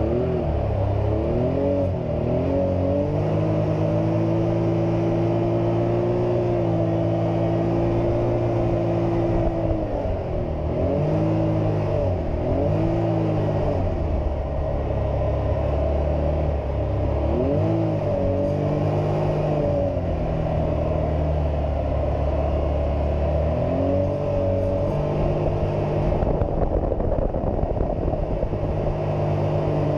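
Can-Am Maverick X3 Turbo RR's turbocharged three-cylinder engine, heard from inside the cab while driving, revving up and down with the throttle several times, holding steady between.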